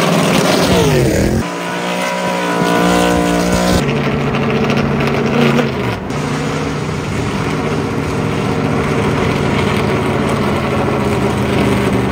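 V8 engine of a 1998 Ford Taurus NASCAR stock car running on the road, its pitch falling in the first second or so and again around five seconds in, and otherwise holding steady, with abrupt jumps in the sound where the shots change.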